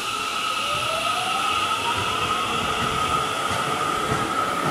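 Seibu 30000-series electric train accelerating out of the station. Its inverter-driven traction motors give a whine that climbs steadily in pitch over a steady high tone, with the running noise of the wheels on the rails growing louder as it gathers speed.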